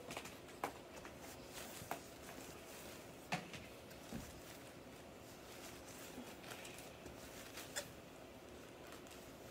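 Flat paintbrush worked across a canvas: faint brushing over a low hiss, with a few soft clicks and taps from the brush and the handled canvas.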